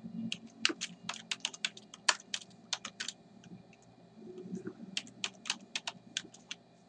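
Typing on a computer keyboard: two bursts of quick key clicks with a pause of about a second and a half between them.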